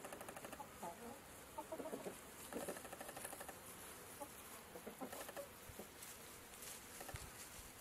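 Domestic chickens clucking quietly: many short, scattered clucks, thinning out in the last couple of seconds.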